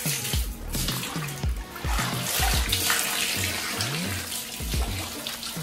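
Water splashing and running as laundry is rinsed and squeezed by hand in a bucket, heaviest in the middle. Background music with a steady beat plays over it.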